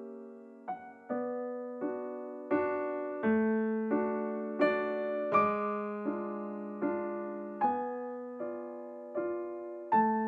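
Background music: a slow solo piano piece, single notes and chords struck about every three-quarters of a second, each fading away before the next.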